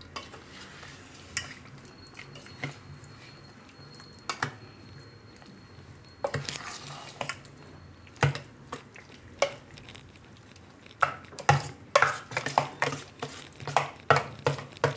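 Steel spoon stirring a wet semolina, curd and water batter in a stainless steel bowl, clinking and scraping against the bowl. The knocks come sparsely at first, then quicker and louder in the last few seconds.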